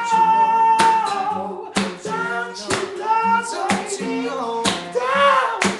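Gospel singing: a long held high note, then vocal runs and ad-libs, over acoustic guitar, with sharp percussive hits on the beat about once a second.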